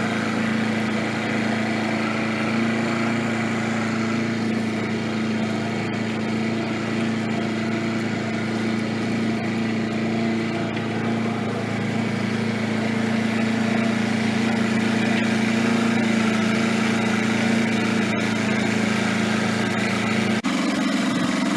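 A sailing boat's auxiliary motor running steadily, pushing the yacht through the channel. Its steady low hum changes abruptly about twenty seconds in.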